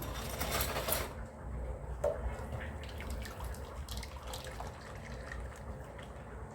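Pomegranate juice mixed with flour being poured through a strainer, trickling and dripping: louder for about the first second, then a faint trickle with small drips.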